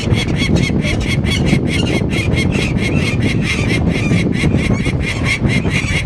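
Peregrine falcon calling a rapid, unbroken series of harsh kak-kak-kak notes, about five or six a second, typical of its alarm at a disturbed nest. Wind rumbles on the microphone underneath.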